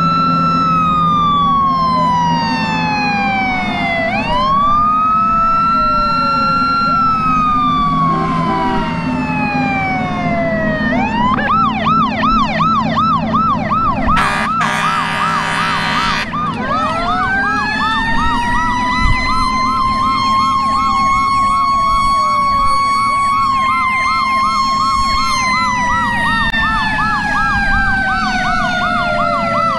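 Fire engine sirens on the move. One siren wails, rising and then slowly falling in pitch. From about 11 seconds in a second, fast-warbling siren joins it, and a horn blasts for about two seconds partway through.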